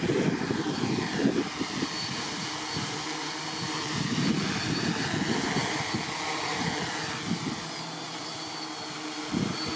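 Quadcopter's electric motors and propellers whirring as it lifts off and holds a low hover, their pitch sliding up and down as the motors correct. Gusts of wind buffet the microphone.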